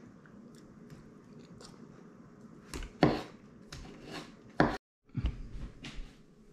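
Eating sounds: a fork working through the remains of a berry pie on a plate, with chewing and sharp clicks. There are two loud knocks, about three seconds in and just before five seconds. The sound then cuts out completely for a moment, and faint handling noises follow.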